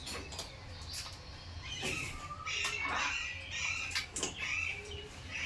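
Parrots chattering and squeaking, with several sharp clicks, over a low steady hum.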